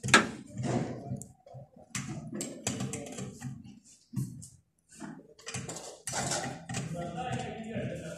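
Irregular clicks and knocks of hand tools and wires being handled at an air conditioner's wiring connection, with one sharp click at the very start.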